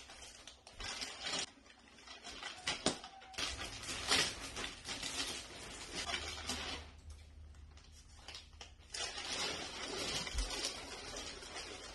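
Plastic wrapping on a roll-packed foam mattress crinkling and rustling as it is pulled and unrolled, in irregular bursts with a short lull about two-thirds of the way through.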